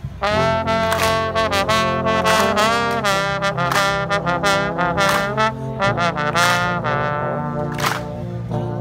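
A Dutch dweilorkest (street brass band) of trumpets, trombones, saxophones and sousaphones playing a tune, with a drum stroke near the end.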